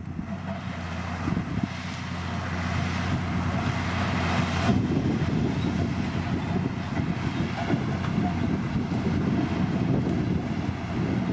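Bulldozer's diesel engine running with a steady low drone. A rushing hiss rides over it and cuts off suddenly about five seconds in.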